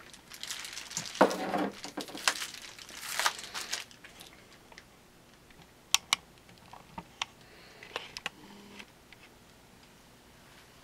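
AK47 parts being handled during disassembly: a few seconds of scraping and rattling with loud knocks, then several separate sharp clicks, some in quick pairs.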